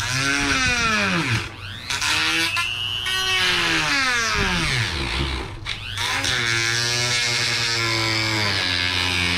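Dremel rotary tool with a cut-off wheel cutting into a door-panel piece. The motor's whine drops in pitch twice as the wheel bogs down in the cut and climbs back, then runs steadier after about six seconds.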